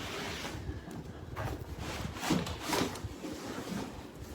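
A nested suitcase set being slid out of its cardboard shipping box: scraping and rustling with several knocks.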